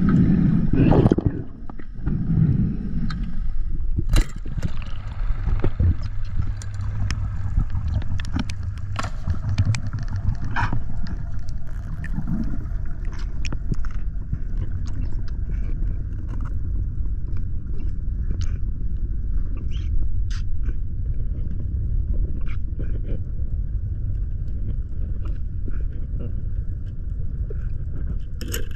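Underwater camera recording a diver's descent: a steady low rumble of water moving past the housing, with scattered sharp clicks throughout and heavier, lumpier sounds in the first three seconds.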